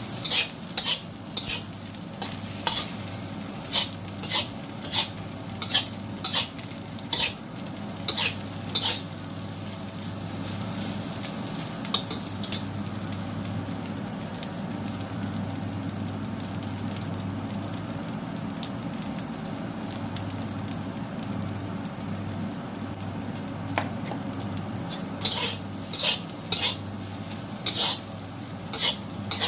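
Rice sizzling as it stir-fries in a wok, with a spatula scraping and clacking against the pan in quick strokes. The strokes stop for a long stretch midway, leaving only the steady sizzle, and come back near the end.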